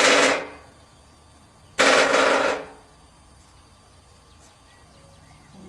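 A woodpecker drumming: two rapid machine-gun-like rolls of beak strikes, the first right at the start and lasting about half a second, the second a little under two seconds later and lasting nearly a second.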